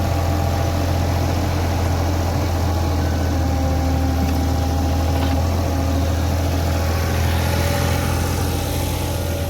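Caterpillar 303 mini excavator's diesel engine idling steadily at low revs.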